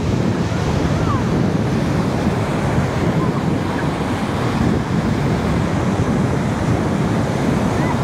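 Rough sea surf breaking and washing up a sandy shore, a steady rushing, with strong wind buffeting the microphone.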